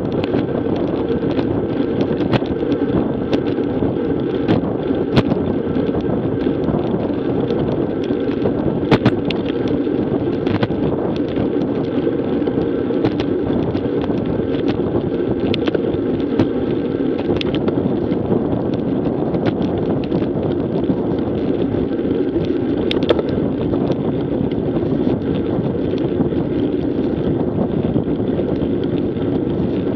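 Steady wind rush on a bicycle-mounted action camera's microphone while riding a road bike, mixed with road rumble and scattered small clicks and knocks from bumps.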